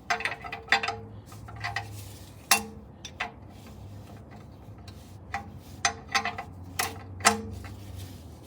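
Sharp metallic clicks and clinks of a wrench on an oil drain plug as it is tightened back in, a dozen or so at uneven intervals, each with a brief ring.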